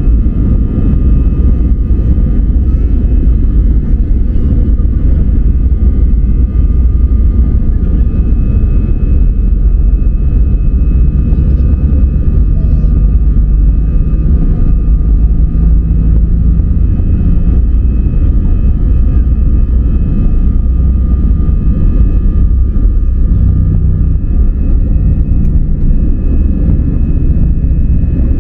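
Airliner engines running at takeoff power: a loud, steady, heavy rumble with a few thin steady whining tones above it.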